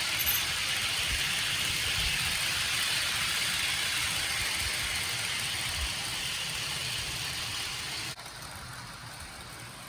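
HO-scale model train running on the track: a steady hiss of motor and wheels with a few soft low thumps, dropping sharply in level about eight seconds in.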